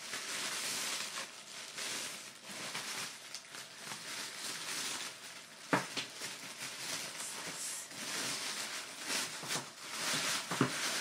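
Hands rustling through gift packaging during an unboxing, a continuous uneven crinkling of wrapping, with one sharp tap about halfway through.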